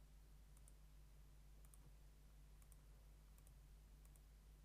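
Near silence with a low steady hum and faint computer mouse clicks, about five of them, roughly one a second.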